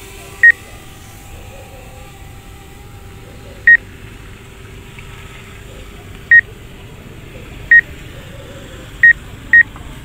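Six short, identical high-pitched warning beeps from the DJI drone flight app, irregularly spaced, the last two close together, over a faint steady hum.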